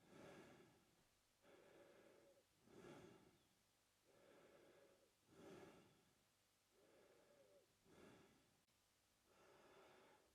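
A man breathing steadily through his mouth, faint: about four slow breaths, each a softer drawn-in breath followed by a shorter, louder breath out.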